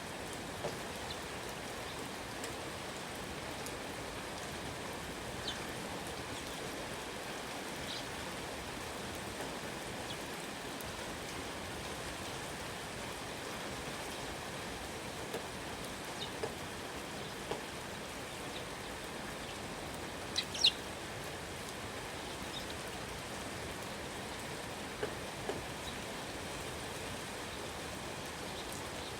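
Steady rain falling, with a bird's short high chirps now and then; the loudest, a quick pair, comes about two-thirds of the way through.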